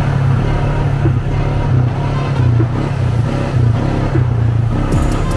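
ATV engine running under way, its low drone shifting a little in pitch as the throttle changes.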